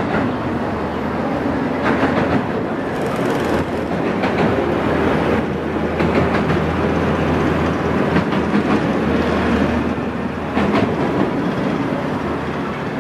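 Track-laying work train of flat wagons loaded with concrete sleepers and gantry cranes rolling past, wheels rumbling on the rails with a few scattered clacks over a steady low hum.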